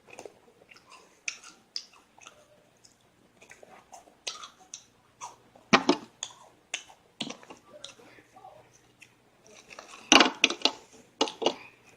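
Crisp cheese wafers being bitten and chewed, a run of short, dry crunches, loudest about six and ten seconds in.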